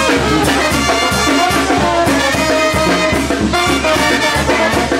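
Live Mexican banda playing: trumpets and trombones over a steady low beat.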